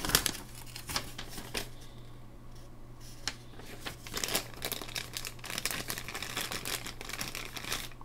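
Folded paper instruction leaflet rustling and crinkling as it is handled and folded, in quick irregular crackles.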